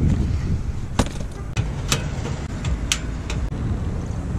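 Folding camp chair being unfolded and set down: three sharp clacks of its frame about a second apart, with a few fainter knocks, over a steady low rumble.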